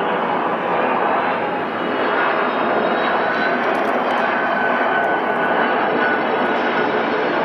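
Boeing KC-767 jet on landing approach: the steady, loud rushing noise of its turbofan engines, with a faint high whine running through it.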